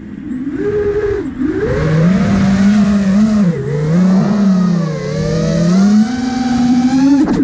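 Motors and propellers of an iFlight Nazgul Evoque F5 5-inch FPV quadcopter whining in flight, the pitch rising and falling with the throttle through flips and dives. The whine dips sharply at the start and again about a second and three and a half seconds in, then climbs back near the end.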